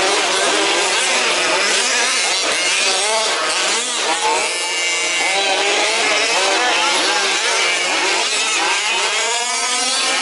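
Several 1/5-scale petrol RC off-road cars racing, their small two-stroke engines revving up and down over one another.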